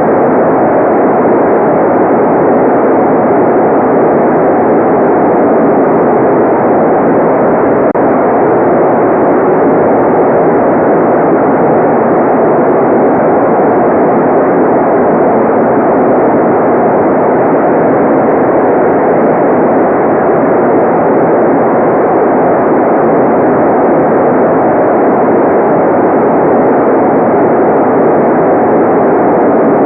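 Steady, unbroken electronic white noise, loud and even throughout, with its weight in the middle range and no high hiss, giving a dull, rushing sound.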